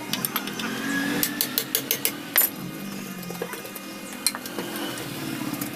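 A screwdriver prying and rocking a water pump's metal front casing loose from the motor body. It makes a string of irregular metal clicks, knocks and scrapes.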